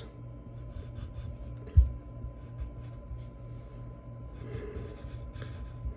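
Graphite pencil sketching on paper: light, intermittent scratchy strokes over a steady low electrical hum. A single soft low thump comes about two seconds in.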